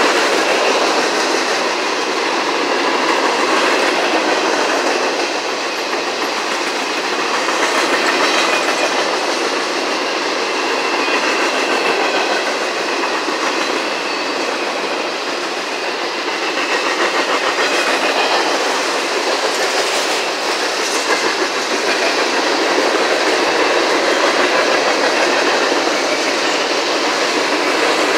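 Freight cars of a CSX manifest train rolling past at close range: a steady noise of steel wheels on rail, with faint thin ringing tones from the wheels and a few sharper clicks about 8 and 20 seconds in.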